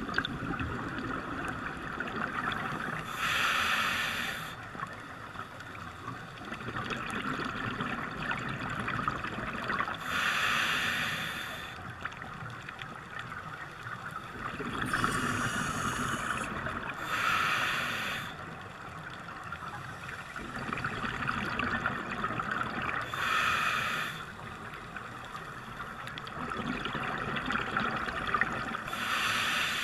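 Scuba divers breathing through regulators underwater: a steady bubbling, broken about every six seconds by a short, loud rush of regulator breath and bubbles.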